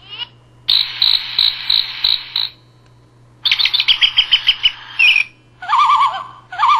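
Built-in sound effects of an MY5000 mobile phone playing through its small speaker: a high tone pulsing about six times, a quick run of bird-like chirps, then a wavering warble played twice.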